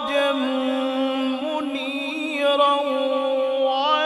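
A male qari reciting the Quran (tilawat) in long melodic phrases. His voice holds a steady note through the first half, then moves through quick ornamental turns and rises near the end.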